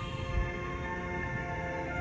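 Background music of slow, held notes that overlap and change pitch, over a low rumble.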